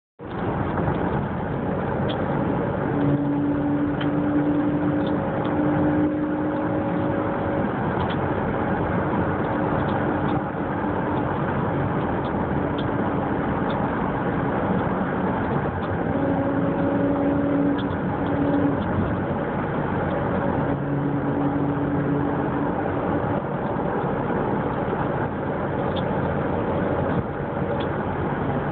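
A 2000 Jeep Grand Cherokee running with steady mechanical noise, over which a low hum comes and goes in stretches of a few seconds: the funny sound the owner is pointing out.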